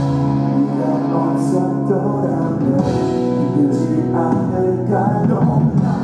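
A rock band playing live through a concert hall's sound system, with a sung melody over held electric bass and guitar chords, as heard from the audience.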